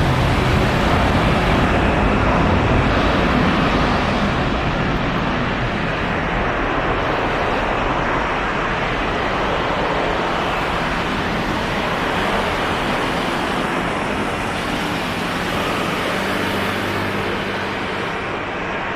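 Steady rushing jet noise from a landing aircraft, fading slowly.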